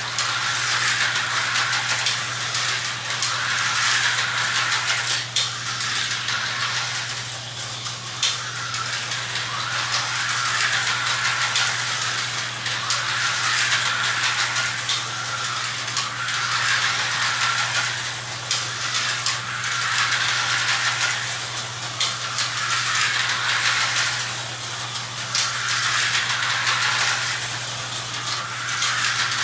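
Vintage Tyco HO slot cars running laps on a plastic track: the whir of their small electric motors and the rattle of the cars in the slots, swelling about every two seconds as they pass close by. A steady low hum runs underneath.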